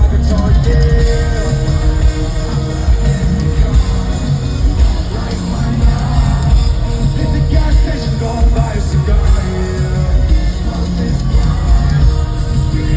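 Loud live rock music with singing, played over an arena sound system.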